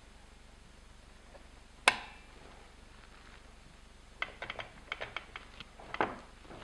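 Hand-handling clatter from a car pedal box assembly: a single sharp metallic click about two seconds in, then a quick run of small clicks and taps and a duller knock near the end as the pedal box and its pedals are turned and set on a wooden board.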